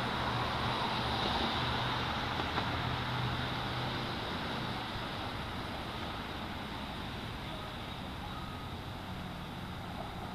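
Fire engine's diesel engine running steadily at low revs as it reverses into the station bay, with a passing car's road noise that fades over the first few seconds.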